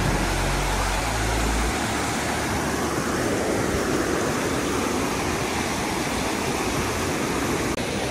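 Rushing water of shallow rocky river rapids, a steady, even roar.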